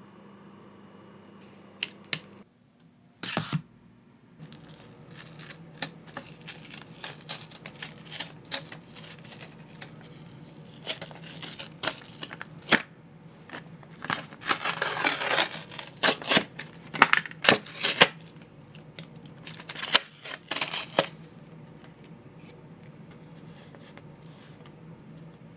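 Handling noises: scattered clicks and taps, with several bursts of rustling in the middle stretch, as of parts and packaging being handled.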